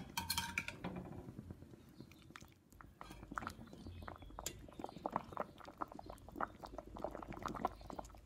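Faint, irregular small clicks and pops from a pot of fish fillets poaching in simmering water and being handled with tongs, over a low steady hum.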